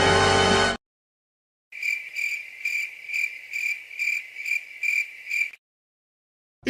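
Stock "crickets" sound effect: a cricket chirping in even, high-pitched pulses, about three a second, for about four seconds. A music clip cuts off just before it, under a second in.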